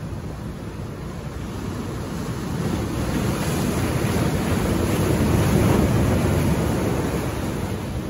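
Ocean surf breaking over shoreline rocks: a rush of water that swells from about two seconds in, peaks just past the middle, and eases off near the end.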